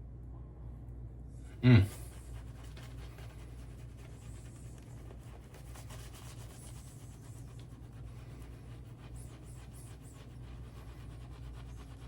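Shaving brush with a synthetic knot working wet lather of Hanami Classic Shave soap with quick, continuous swishing strokes. The lather is still building after a lot of added water. A short vocal sound comes as the brushing starts.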